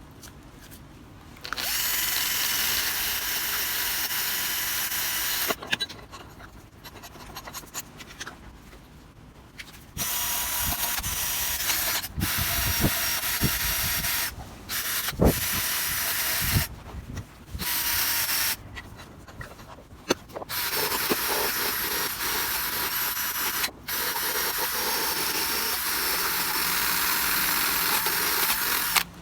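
Handheld electric power tool run in several bursts of a few seconds each, a steady whine over a rough grinding hiss, stopping abruptly between bursts. In the quieter gaps there are a few light knocks.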